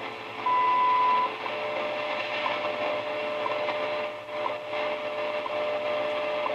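National NC-88 tube communications receiver playing through its speaker while being tuned: a steady hiss of band noise and static, with a short loud whistle about half a second in, then a lower steady tone from about a second and a half on. The receiver is working again after its weak tubes and bad resistors were replaced.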